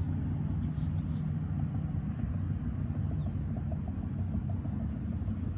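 Steady low background rumble with no speech, with a few faint high chirps in the first second or so.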